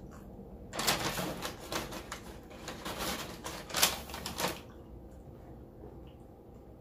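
Packaging crinkled and handled at close range: a dense run of crackling for about four seconds that stops about four and a half seconds in.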